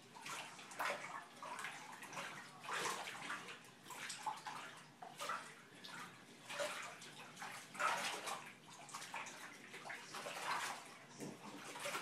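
Water sloshing and splashing in a bathtub as bare feet and hands work a load of clothes, in irregular swishes about once a second.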